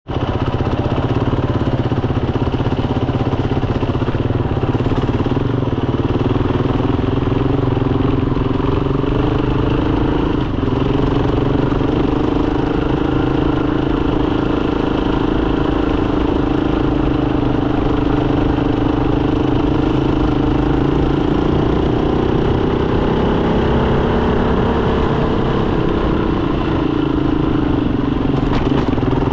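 Motorcycle engine running steadily while under way, its note drifting gently up and down with the throttle.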